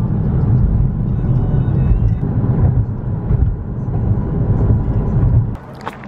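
Road and engine noise inside a moving car's cabin: a steady low rumble that drops away abruptly near the end.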